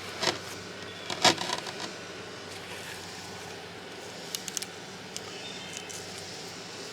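Light knocks and scrapes of a mortar casting being handled, loudest about a second in, with a few small clicks later, over a steady background hum.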